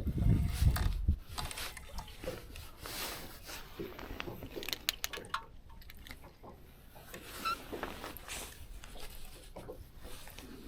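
Small crappie being reeled in and landed: scattered clicks and ticks of reel and line handling with water dripping, after a louder low rumble in the first second or so.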